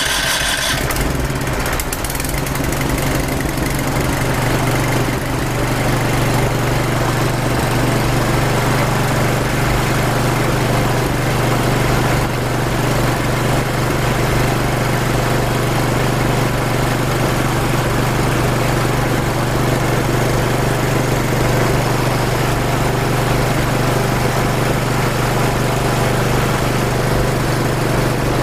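Small engine running steadily just after starting, an even, unchanging drone. The demonstrator says it is running on a water fuel mixture with 5 ml of gasoline added, with its petrol supply shut off.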